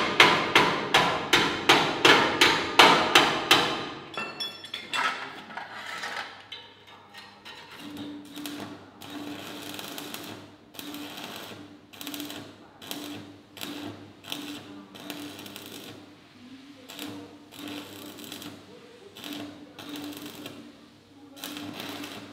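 Hammer striking steel, about four quick blows a second, loud for the first four seconds and then sparser. From about eight seconds in, the crackle and sizzle of stick arc welding on the steel sculpture.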